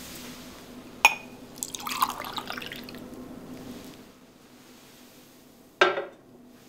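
A sharp glass clink about a second in, then liquid is poured from a small glass bottle into a glass of tea for about a second. Near the end the tea glass is set down on a glass-topped table with a clink.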